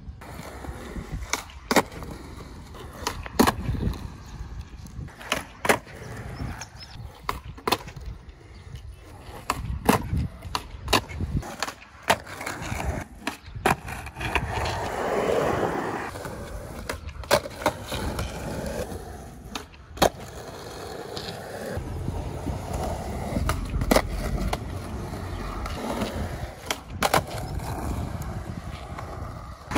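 Skateboard on concrete, fitted with counterfeit trucks: repeated sharp pops and slaps of the board as kickflips are tried and landed, with wheels rolling over the concrete in between. The rolling is longest about halfway through and again over the last third.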